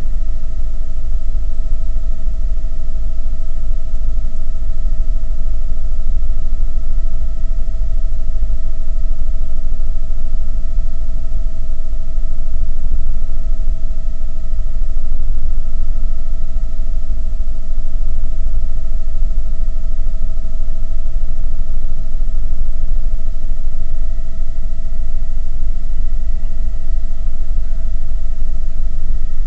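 Helicopter in flight heard from inside the cabin: a loud, steady low rumble of rotor and engine with a constant high whine over it.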